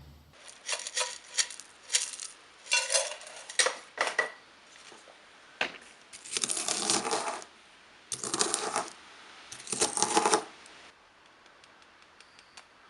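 Small metal pieces clinking against each other and a hard surface: a string of separate ringing clinks, then three longer rattling bursts like pieces being shaken or poured, ending about two seconds before the end.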